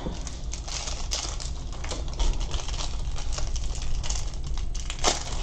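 Clear plastic packaging bag crinkling and crackling as small tools are worked out of it, a dense run of quick little crackles with one louder crackle near the end.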